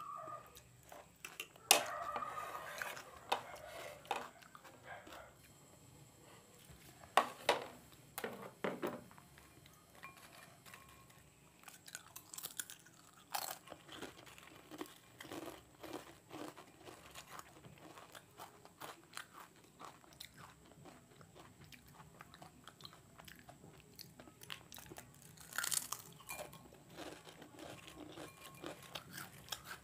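Close-miked eating: crisp wavy potato chips and Kurkure crunching and being chewed, in many short irregular crunches. A few louder sharp knocks come in the first several seconds.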